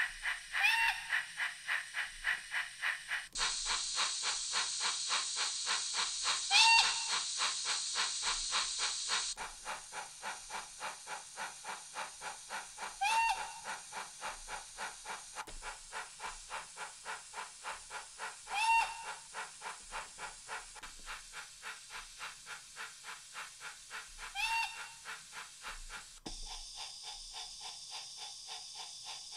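Recorded steam-locomotive sound from a Wheeltappers 1P DCC sound decoder played through small model-railway speakers: steady exhaust chuffs at about three a second, with a short whistle-like squeal about every six seconds. The tone changes abruptly five times as playback is switched from one speaker to the next.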